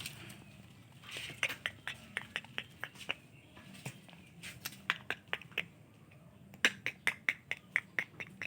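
Dogs playing in a small room: runs of short, sharp clicking sounds, several a second, coming in bursts with short pauses between.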